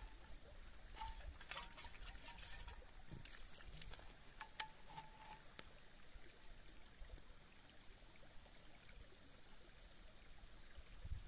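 Faint trickle of a shallow stream running over stones around a metal flask held in the water, with a few light clicks in the first half.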